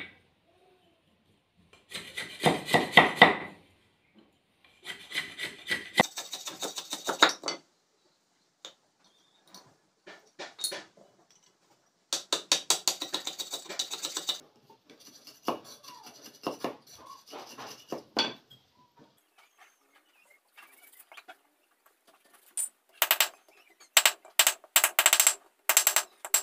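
A knife blade scraping and shaving bamboo in several bursts of rapid strokes, then a run of sharp chopping knocks of the blade into the bamboo near the end.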